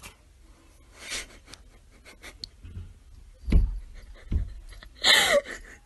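Breathy, panting laughter from a person filming, with two dull thumps in the middle as the cat bumps about against the door and floor.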